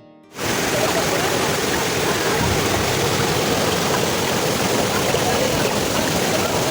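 Waterfall rushing: a steady, loud roar of falling water that starts suddenly about half a second in.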